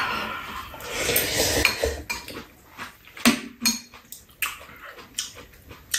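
Metal spoons and chopsticks clinking against bowls and a metal serving tray during a ramen meal. A few sharp, separate clicks come in the second half.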